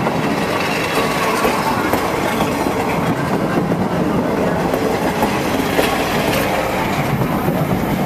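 Railroad cars' steel wheels and trucks rolling along the track directly overhead, a steady rumble and clatter of wheels on rail, with a sharp click about six seconds in.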